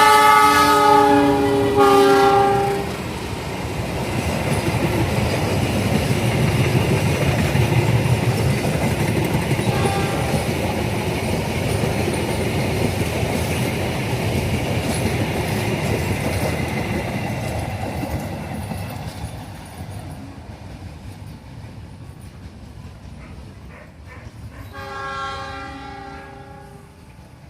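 CC 206 diesel locomotive's air horn sounds a multi-note chord in two blasts, the first about a second long and the second shorter. The train then passes, its wheels clattering over rail joints and slowly fading. A short faint horn comes about ten seconds in, and another horn blast, quieter, comes near the end.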